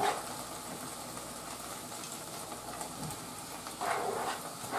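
Okra frying in a skillet on medium heat, a steady soft sizzle, with a scrape at the start and another about four seconds in as chopped onion, garlic and bell pepper are pushed off a plastic cutting board into the pan.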